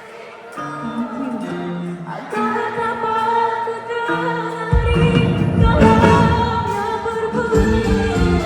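Music from a traditional Malaysian orchestra with singing, held melodic notes over a lighter accompaniment; a fuller, louder ensemble with a heavy low end comes in about five seconds in.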